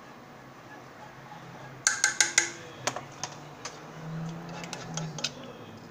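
Light kitchen clatter: a quick cluster of four or five sharp clicks and taps about two seconds in, then a few scattered lighter taps.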